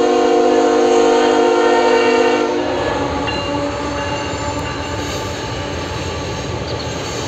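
A diesel freight locomotive's air horn sounds a held multi-note chord that cuts off about two and a half seconds in. After it, the locomotives' engines and the rolling wheels of the passing train make a steady low rumble.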